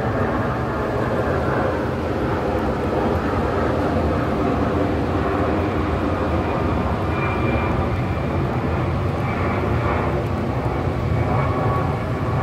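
Twin-engine jet airliner flying overhead: a steady, loud jet-engine rumble that grows duller after the first couple of seconds as the plane moves away.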